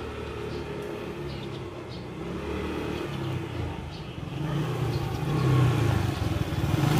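Small motor scooter engine running as the scooter rides up toward the listener, getting louder over the last few seconds.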